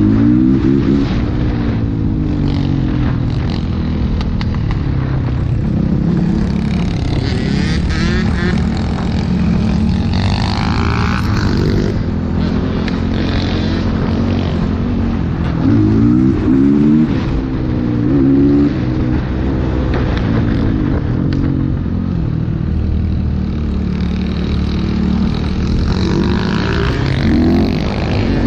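Motorcycle engine running under way, revving up in pitch and dropping back several times as it shifts through gears, over a steady low rumble.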